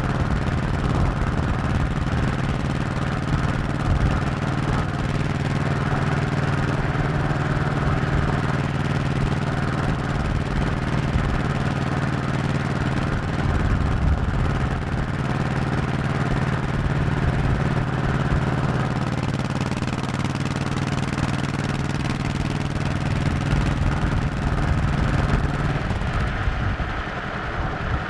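Honda 1100cc motorcycle engine running steadily at cruising speed, with road and wind noise under it. Near the end the engine note drops and gets quieter as the throttle eases off.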